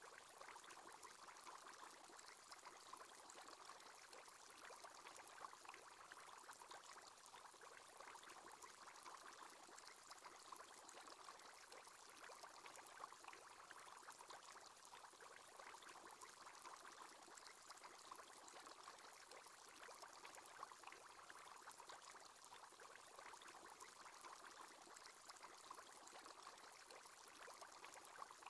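Faint, steady bubbling of an aquarium aerator's bubble column, a fine fizzy crackle without pause: the screensaver's bubble sound effect.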